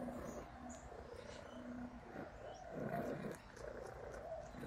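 Russian Blue cat eating chunks of wet food from a bowl: irregular chewing and mouthing sounds, with a few small clicks.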